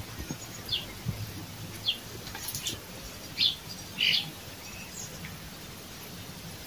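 Birds chirping: a handful of short, high chirps, each falling in pitch, at irregular intervals over a faint steady background.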